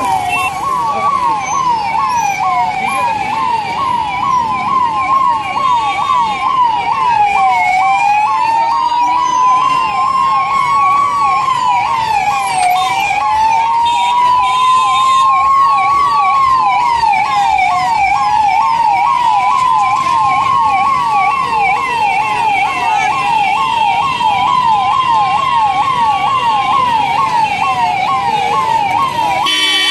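Electronic emergency-vehicle sirens sounding loud and close: a fast yelp repeating several times a second layered over a slow wail that climbs for about five seconds and drops back, over and over.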